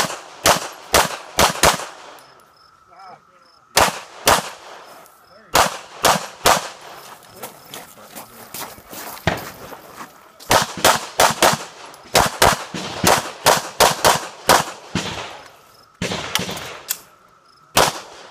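Rapid pistol shots fired in quick pairs and longer strings, with pauses of a second or two between the strings.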